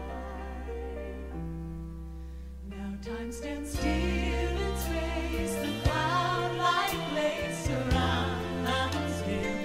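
Live recording of a band with sung vocal harmonies: held chords and voices die down, then about four seconds in the drums and full band come back in, with singing over them.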